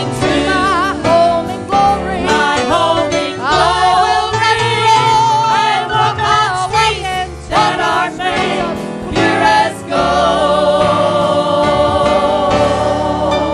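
Gospel singing by a church congregation or choir with vibrato, over instrumental accompaniment.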